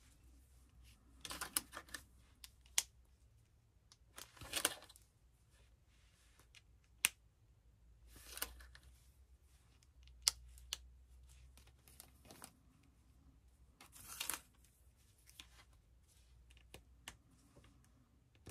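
Faint handling sounds of thin metal craft cutting dies and their storage being sorted: short rustles four times and a few sharp clicks, spaced out by pauses.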